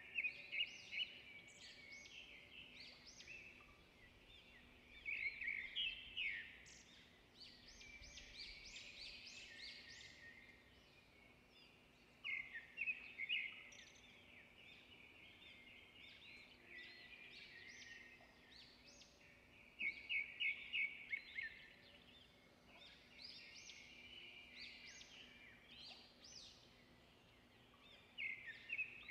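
Small birds chirping and twittering, with louder bursts of quick trills every several seconds. A faint steady low hum runs underneath.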